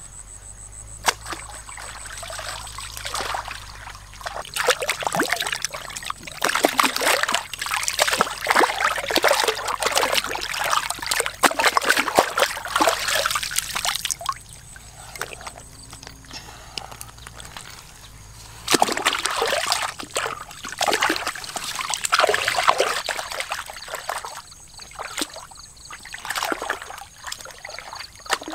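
Water splashing and sloshing in irregular bursts, in two long spells with a quieter gap between them.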